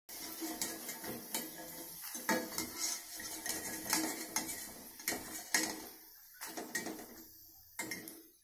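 A steel wire-mesh skimmer clinking and scraping against a steel kadai while rice fryums fry in hot oil, with the oil sizzling underneath. The sizzling and clinks grow quieter after about six seconds as the fried pieces are lifted out.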